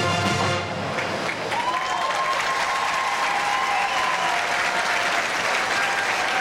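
Stadium crowd applauding and cheering as the marching band's final chord cuts off in the first second. A long held note rises above the crowd noise from about a second and a half in to about five seconds.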